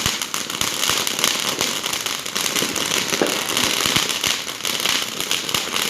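Many firecrackers and fireworks going off at once: a dense, continuous run of sharp pops and crackles with a few louder bangs.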